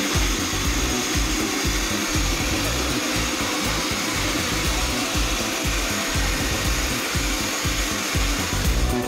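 Steady rushing air noise of a dog-grooming blower running, with background music and its beat underneath.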